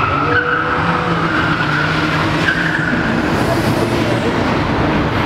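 Car tyres squealing through a long drift over the steady drone of the engine under load; the squeal steps up slightly in pitch about two and a half seconds in.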